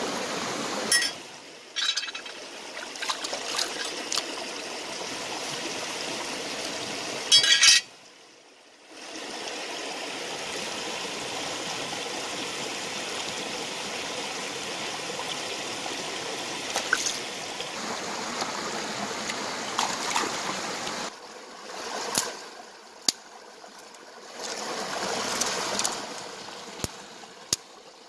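A rocky stream running over stones, a steady rush of water that drops away briefly a few times. Sharp clicks and knocks sound over it, the loudest a short burst of them about seven seconds in.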